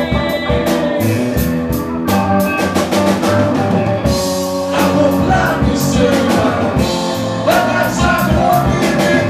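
A live rock band playing a song, with electric guitar, bass, drum kit and keyboard, and a man singing.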